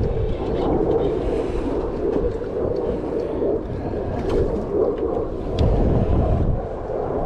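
Wind buffeting the microphone over open sea, with the steady wash of water and a low rumble from the boat.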